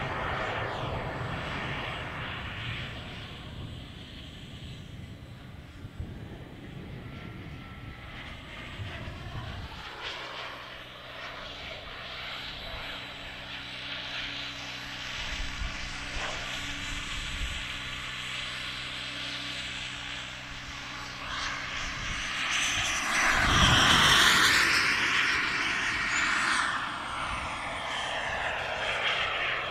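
Model jet turbine of a radio-controlled T-45 flying overhead, a steady whine mixed with rushing air noise. It swells to its loudest in a close pass about two-thirds of the way through, then falls in pitch as the jet moves away.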